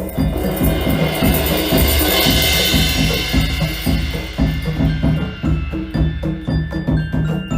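Instrumental music with drums: a cymbal wash swells over the first few seconds and fades, over a steady, evenly pulsing low beat, and short bell-like notes come back near the end.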